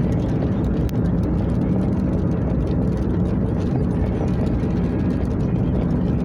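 Steady road and engine noise inside a car's cabin while driving on a rain-wet road, with one short click about a second in.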